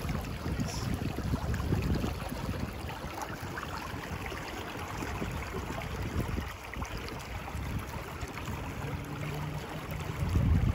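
Fast river current rushing and splashing around a wading angler's legs, a steady watery hiss over a low, uneven rumble.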